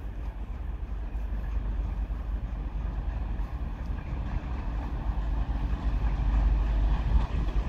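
TEP70 diesel passenger locomotive approaching with its train, its 16-cylinder diesel engine running as a low, steady rumble that grows gradually louder as it nears.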